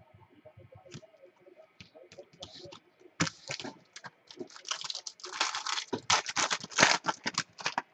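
Foil trading-card pack wrapper crinkling as it is handled and opened: faint ticks at first, then from about three seconds in a dense run of sharp crackles, loudest in the second half.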